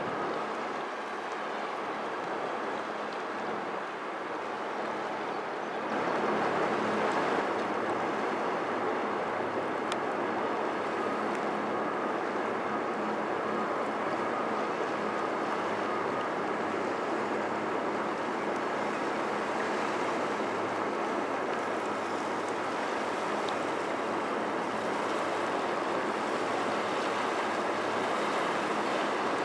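Steady rushing of river water and wind as a small cargo ship passes close by, with a faint low engine hum underneath. The noise jumps up in level about six seconds in and then holds steady.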